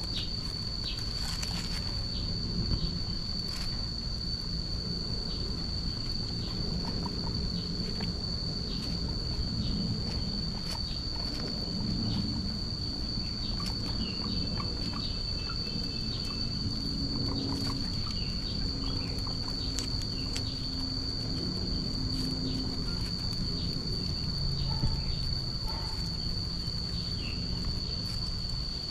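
A steady, high-pitched insect trill holding one pitch throughout, with scattered short clicks and faint chirps beneath it.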